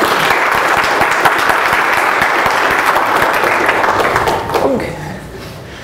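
Audience applauding after a talk, a dense steady clatter of many hands clapping that dies away about five seconds in.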